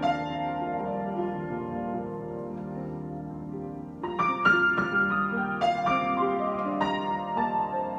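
Solo piano improvisation: held notes and chords fade softly through the first half, then, about halfway, new chords are struck more firmly several times in a row.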